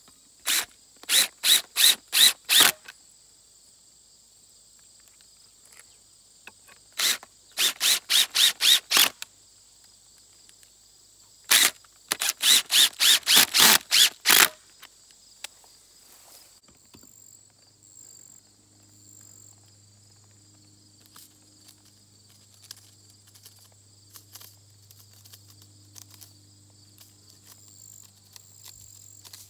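Cordless drill driving screws into a wooden stump in short trigger-pulsed bursts, three runs of about six to ten quick bursts each.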